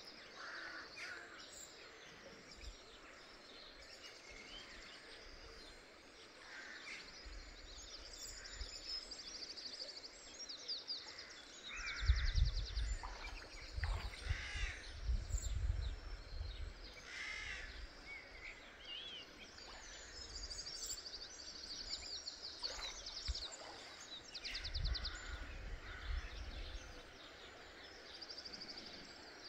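Small birds singing and calling, with rapid high trills repeating throughout over a faint steady outdoor background. A low rumbling comes in about twelve seconds in and again later.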